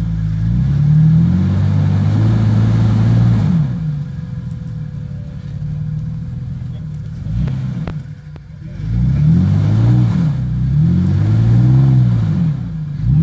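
Jeep Wrangler engine revving up and falling back in repeated swells as it climbs a rock ledge off-road. The revs drop away briefly a little past halfway, then rise again.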